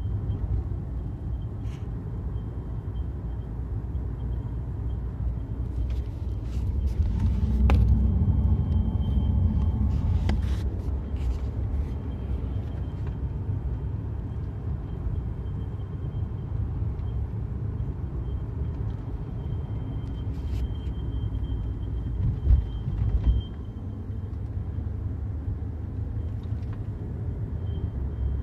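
A thin, high-pitched whistle like a mosquito, coming and going inside a BMW's cabin over the car's steady low rumble, with a few scattered clicks. The source of the whistle is unknown.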